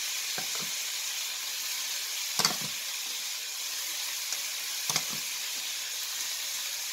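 Chopped chicken, carrot and bell peppers sizzling steadily in hot oil in a frying pan. A few short sharp knocks cut through it, the loudest a pair about two and a half seconds in and another pair about five seconds in.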